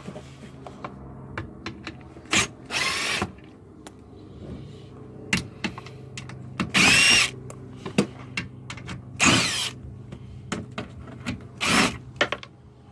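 Impact wrench spinning out the skid plate fasteners in four short bursts, a few seconds apart, with clicks and knocks of handling in between.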